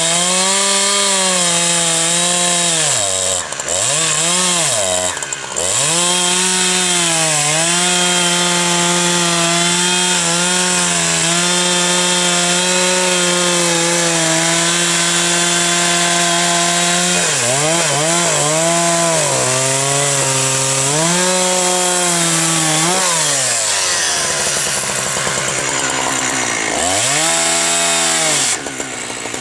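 Petrol two-stroke chainsaw running at high revs while cutting into a standing log, its pitch sagging again and again as the chain bites into the wood and then recovering. About two-thirds of the way through it drops to idle, revs up briefly once more near the end and falls back.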